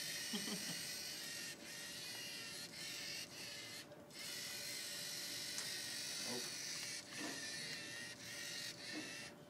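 LEGO Mindstorms NXT robot's electric servo motors whirring steadily as it drives through the maze, cutting out briefly several times as it stops and turns.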